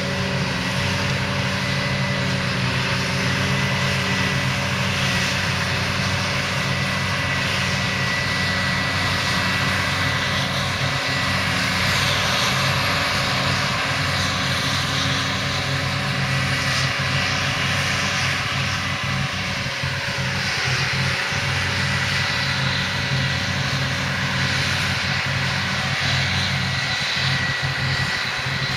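Large diesel farm machinery running steadily under load, with a whining tone that drops in pitch about twenty seconds in.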